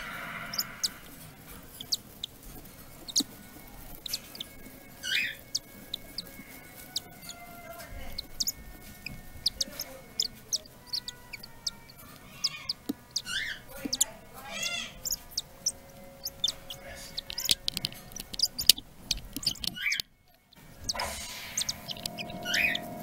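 Cockatiel chicks, days old, giving short high cheeps now and then among many scattered small clicks, over a faint steady background.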